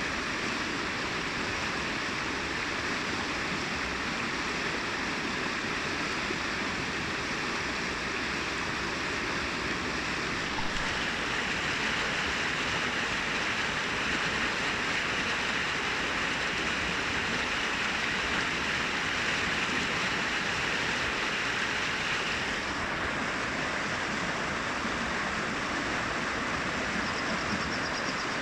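Brook water cascading over rocks, a steady rushing and babbling that grows a little louder and brighter for a stretch in the middle.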